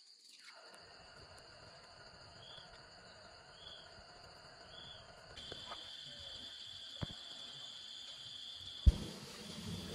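Insects trilling, high and steady, pulsing at first and running on continuously from about five seconds in. A single sharp knock about nine seconds in, followed by a low rumbling noise.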